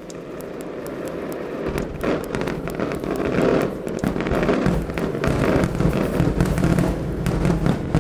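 Experimental electronic music played live: a dense crackling noise texture that starts abruptly and grows steadily louder, with a deep low rumble joining under two seconds in.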